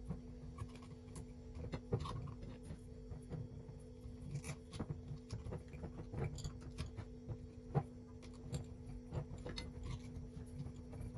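Whole chili peppers being pressed and packed by hand into a glass jar: irregular light clicks, taps and rustles of peppers against each other and the glass, over a steady low hum.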